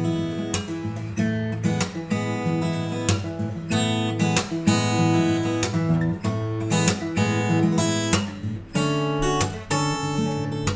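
Yamaha LL-16 all-solid acoustic guitar played with the fingers: a steady run of strummed chords and picked notes that ring on between strokes.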